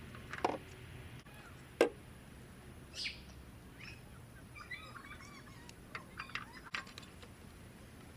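Faint bird chirps over a quiet outdoor background, with a couple of sharp knocks, about half a second in and just under two seconds in.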